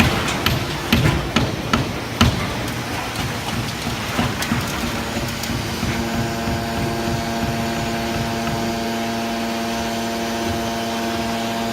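Scrap-can baler at work: a run of sharp knocks and clatter over the first two seconds or so, then a steady machine hum that settles into an even pitched whine about six seconds in.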